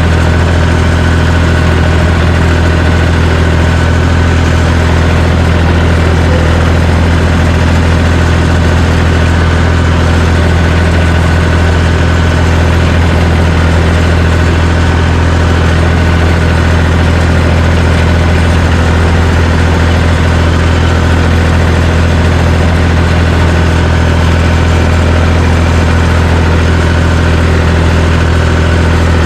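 John Deere 350 crawler dozer's engine running steadily at constant speed, with a deep, even hum.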